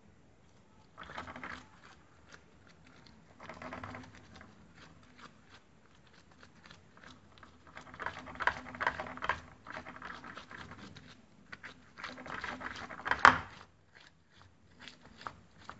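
Gloved hand pressing and patting crumbly semolina dough flat in a baking pan: scraping and crackling in several bursts, with a sharp knock about 13 seconds in.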